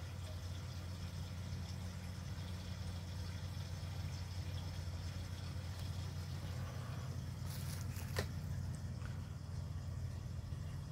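A steady low hum, with one short click about eight seconds in.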